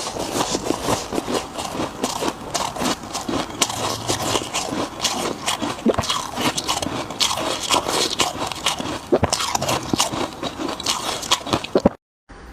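Close-up biting and chewing of freezer frost: dense, irregular crisp crunches and crackles, cutting off abruptly near the end.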